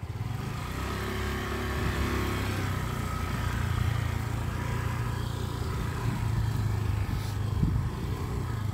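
Motor scooter engine running steadily.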